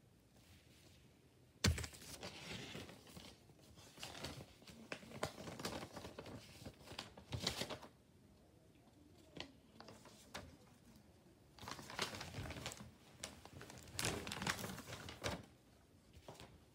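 A sheet of paper being handled close to the microphone, crinkling and rustling in irregular bursts, with a sharp knock about a second and a half in.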